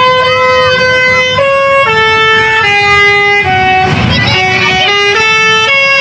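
Bus telolet horn playing a melody: a run of held horn notes, the first long, then shorter notes stepping down and back up in pitch. A short noisy burst comes about four seconds in.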